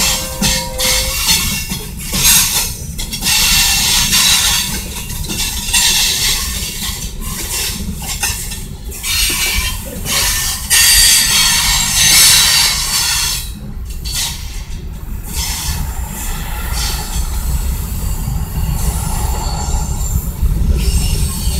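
KCS freight train's tank cars and covered hoppers rolling past at close range: a steady rumble, with the steel wheels squealing high-pitched on the rails, the squeal swelling and fading as the cars go by.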